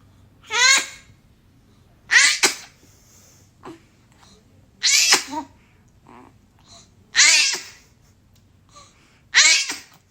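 Five sneezes in a row, about two seconds apart, each a short squeak falling in pitch that ends in a sharp puff of air. The uploader wonders whether the sneezing is a sign of a cold.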